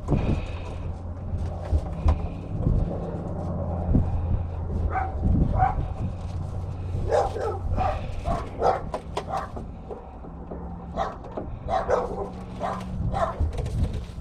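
Wind buffeting the microphone as a constant low rumble, with a dog barking in short bouts of several barks through the middle and latter part.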